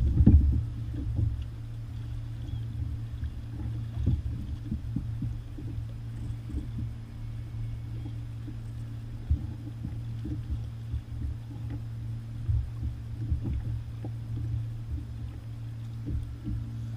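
Wind rumbling on the camera's microphone, with irregular thumps and knocks of choppy water against the kayak's hull.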